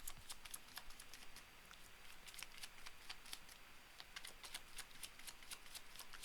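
Tarot cards being shuffled and handled: a faint, irregular run of light, crisp card clicks, a few a second.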